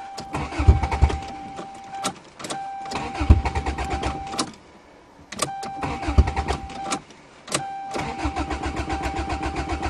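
A Toyota's starter cranking a cold engine in four separate tries, each a run of even, rapid chugs with a steady whine through it. The engine never catches: a failed cold start, which the owner puts down to the car having no exhaust and so no back pressure.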